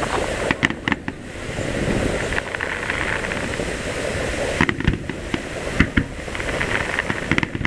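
Aerial fireworks shells bursting: clusters of sharp bangs about half a second in, around five to six seconds in, and near the end, over a continuous crackling hiss.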